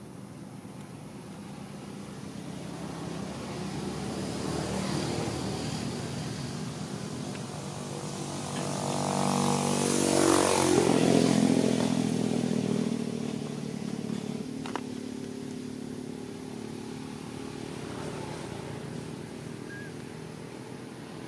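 A motor vehicle's engine passing by: it grows louder to a peak about ten seconds in, its note dropping in pitch as it goes past, then fades away. A single sharp click comes a few seconds after the peak.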